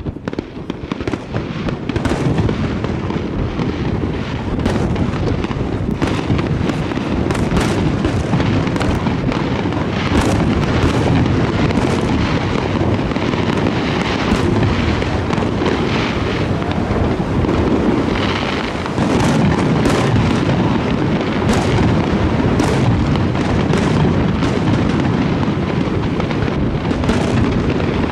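Aerial fireworks display: a dense, continuous barrage of shell bursts, many bangs overlapping over a heavy rumble, easing briefly about eighteen seconds in before building again.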